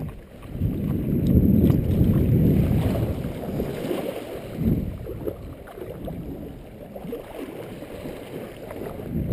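Wind on the microphone and small waves washing over the wet sand at the water's edge: a low, muffled rumble, loudest in the first few seconds and then easing off.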